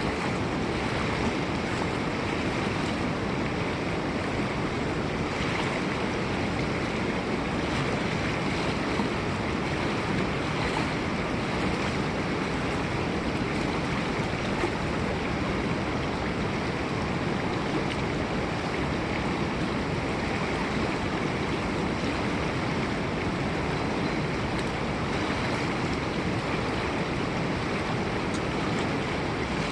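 River water flowing steadily, an even rush of moving water with no break or change.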